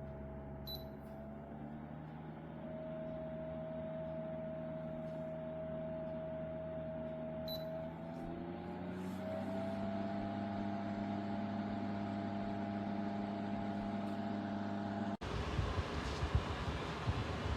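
A steady motor hum made of several tones, stepping up slightly in pitch about nine seconds in. Near the end it cuts abruptly to a rougher, noisier sound.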